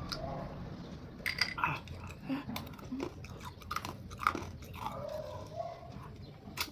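A person chewing and crunching on a fresh chilli, with irregular crunches.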